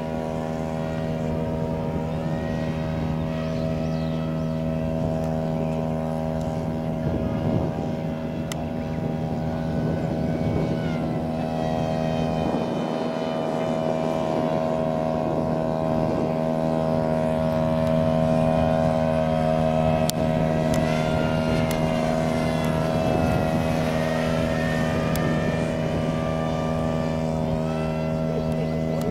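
Motor and propeller of a radio-controlled Shinden model airplane whining as it flies circuits, its pitch rising and falling as it passes, over a steady low hum.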